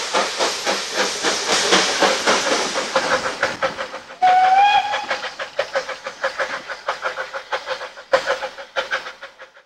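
Steam tank locomotive working a train away, its exhaust beating in a steady rhythm of several chuffs a second with steam hiss. A short whistle blast sounds a little over four seconds in, and the chuffing fades toward the end as the train draws away.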